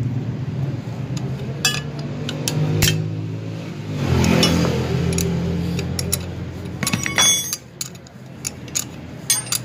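Steel ring spanner clinking and ticking against double-locked nuts as a stud is unscrewed from a turbocharger housing, with a quick cluster of sharp clicks about seven seconds in. A steady low hum runs underneath and stops at about the same point.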